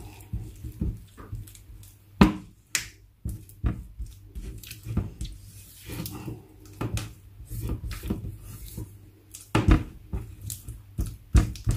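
Irregular clicks and knocks of a utensil against a mixing bowl as cream cheese and powdered sugar are mixed together.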